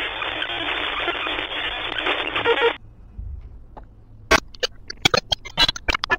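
A static-noise hiss from a video glitch transition effect for about three seconds, cutting off abruptly. After a short lull, a scattered run of sharp clicks and knocks from the camera being handled and adjusted.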